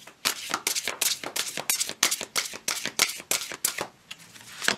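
Tarot cards being shuffled by hand: a quick run of papery card slaps and flicks, about six a second, that stops a little before the end, followed by one last snap.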